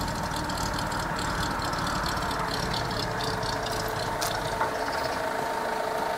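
Engine of road-repair machinery idling steadily, with a thin steady whine over the low rumble.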